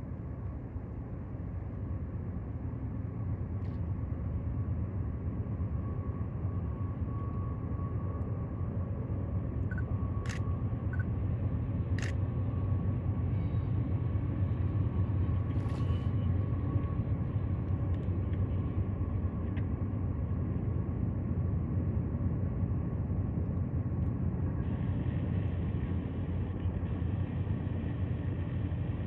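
Distant freight train rumbling past at line speed, with CP diesel locomotives led by AC44 8638 hauling mixed cars at about 50 mph: a low steady rumble that builds a little over the first few seconds. Two sharp clicks sound about ten and twelve seconds in.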